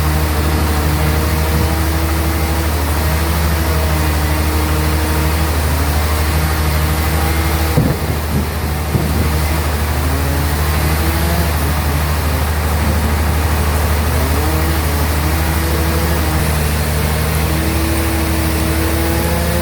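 Sawmill bandsaw running: a steady deep hum with a wavering whine above it, and a brief knock about eight seconds in.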